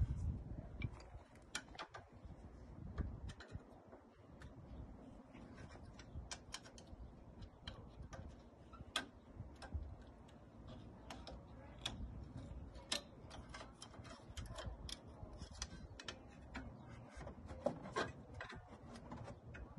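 Irregular sharp metallic clicks and clinks of hand tools working on a car's rear brake assembly, a few a second, over a faint low rumble.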